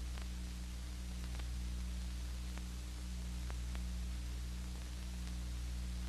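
Steady hum and hiss of an old film soundtrack, with a few faint scattered clicks; no sound from the scene itself.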